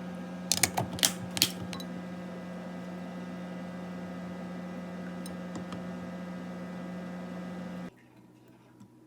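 A handful of sharp keystrokes on a Hansung electrostatic capacitive keyboard in the first second and a half, over a steady hum that cuts off abruptly near the end.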